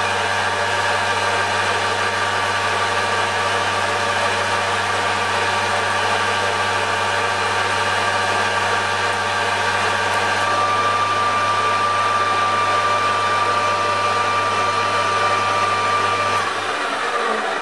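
Metal lathe running steadily, its electric motor humming under a mechanical whirr. About ten seconds in a steady whine joins it, and about a second before the end the motor hum stops as the machine is switched off.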